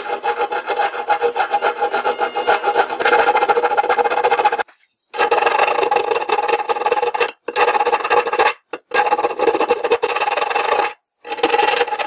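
Round 10-inch rat-tail file rasping back and forth in a slot in a metal panel. The strokes run continuously at first, then stop briefly a few times, the first time about four and a half seconds in.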